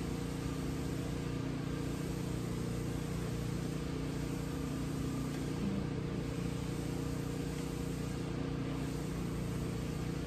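A steady, unchanging hum of running machinery, holding several constant low tones.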